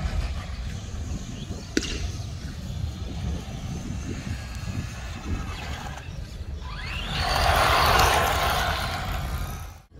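Radio-controlled rally car with a Toyota Yaris body driving on asphalt. For most of the stretch it is faint and distant. About six and a half seconds in its sound rises in pitch and swells into a loud rush of motor and tyres as it passes close, then cuts off abruptly just before the end.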